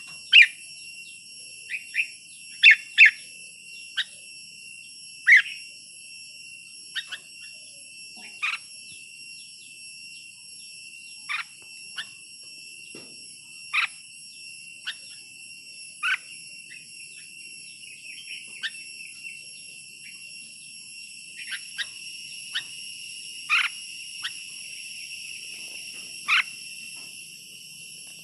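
Red-whiskered bulbul giving short, sharp downslurred call notes, about twenty spaced irregularly, the loudest and quickest in the first few seconds. They sound over a steady high-pitched insect drone.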